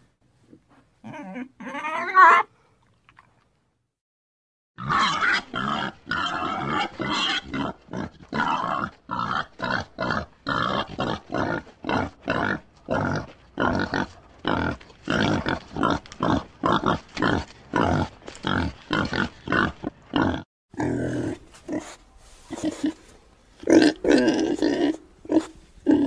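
Pig grunting in a quick, even run of short grunts, about two or three a second, after a brief squeal about a second in; louder grunts come near the end.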